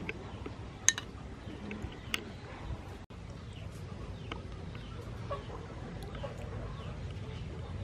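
Chickens clucking in the background, many short calls throughout, with two sharp clicks about one and two seconds in.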